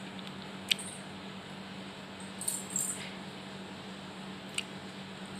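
Metal utensil clinking against a cooking pot during cooking: a sharp clink about a second in, a few lighter clinks around the middle and another near the end, over a steady low hum.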